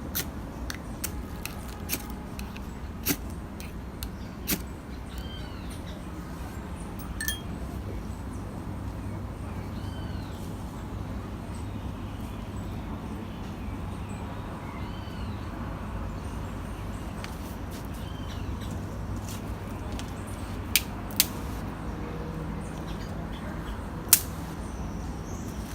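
Sharp clicking strikes of a fire striker (pederneira) being struck to catch a spark on tinder. There are about one a second for the first several seconds, then three more near the end. A bird chirps a few times.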